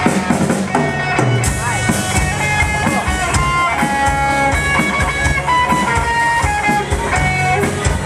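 Instrumental band music: a guitar melody over bass and drums, with no singing.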